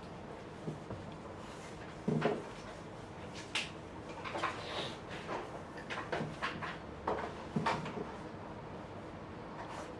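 Quick sketching strokes on paper: irregular, short scratchy swishes of a drawing tool, with a soft thump about two seconds in.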